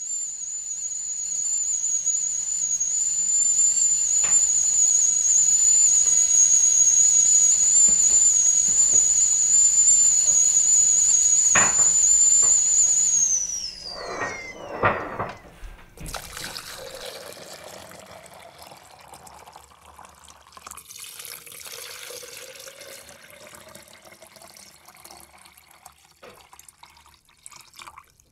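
Whistling kettle giving a loud, steady high whistle. About halfway through the whistle drops in pitch and dies away as the kettle comes off the boil. A few clinks follow, then hot water is poured, the pour rising in pitch as the vessel fills.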